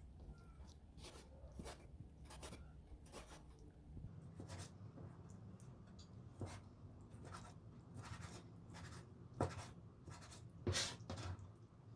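A knife chopping and dicing chicken gizzards, liver and hearts on a cutting board: faint, irregular taps, about one or two a second.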